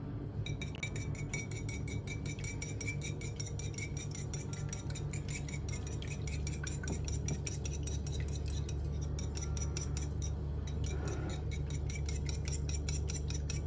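Metal utensil stirring or whisking fast against a dish, a rapid, even run of ringing clinks over a steady low hum; it cuts off suddenly at the end.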